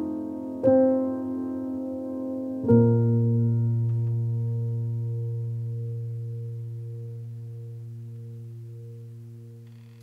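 Background piano music: a chord struck about a second in, then a final low chord a little before three seconds that rings on and slowly fades away.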